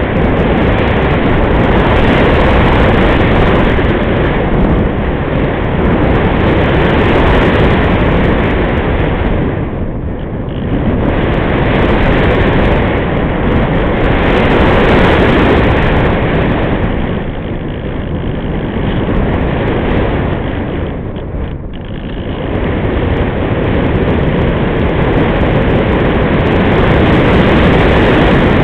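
Wind rushing over the microphone of a camera riding on a Multiplex Easy Glider RC sailplane in unpowered gliding flight: a loud, steady rush with no motor tone, swelling and easing and dipping briefly three times.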